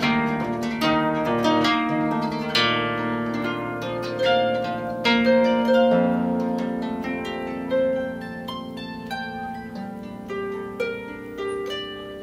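6/6 cross-strung harp played solo: plucked notes ringing and overlapping above sustained bass notes, growing sparser and fading as the piece winds down. Recorded through a low-end phone's microphone.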